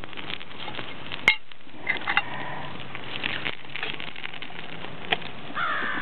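A tin of shoe polish burning with a tall open flame, giving a steady soft noise, broken by a sharp click about a second in and another near the end. A crow begins cawing just before the end.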